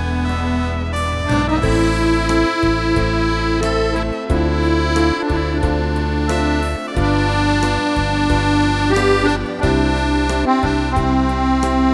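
Accordion playing a melody over held bass notes that change every second or two, each change marked by a short break.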